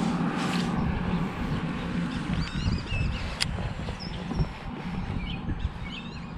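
Birds chirping in short rising-and-falling calls over a loud low rumble, with a single sharp click about three and a half seconds in.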